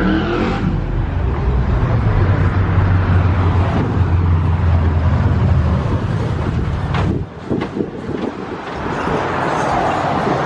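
A car engine running with a deep, steady note. About seven seconds in the engine sound drops away with a few knocks, leaving general street noise.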